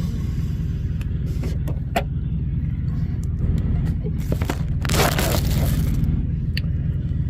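Steady low rumble of a truck's engine heard from inside the cab, with a few light clicks and a brief burst of rustling noise in the middle.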